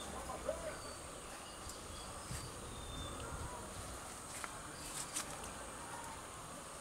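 Garden ambience with a steady high drone of insects, broken by a few sharp clicks of hand work in the bonsai's branches, the clearest two about five seconds in.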